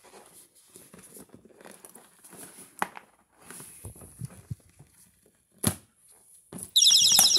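Small clicks and rustles of pliers handling a spider-wrap security tag and its cable, then near the end the tag's built-in alarm goes off abruptly with a loud, shrill, rapidly pulsing tone.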